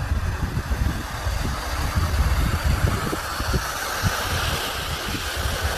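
Wind buffeting the microphone: irregular low rumbles over a steady rushing hiss, the hiss growing a little about two seconds in.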